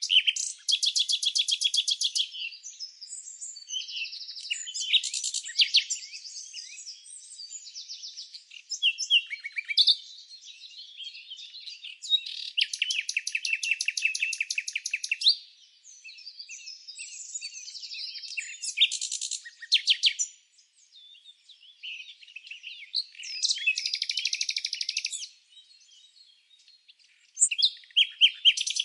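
Songbirds chirping and singing, with fast trills lasting two to three seconds several times and shorter chirps in between.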